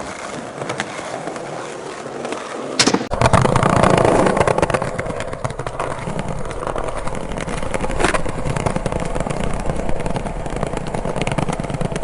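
Skateboard wheels rolling over pavement, with a sharp knock about three seconds in, after which the rolling is louder and rumbles lower.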